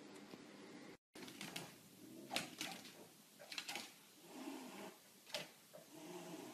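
Faint hiss, then a run of light clicks and knocks with short low sounds between them, from a pug and a cat moving about on a hardwood floor.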